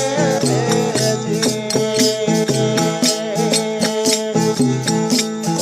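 Indian folk devotional bhajan accompaniment between sung lines: steady held chords under an even, quick beat of percussion strikes.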